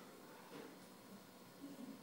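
Near silence: room tone with a few faint, soft sounds about half a second in and again near the end.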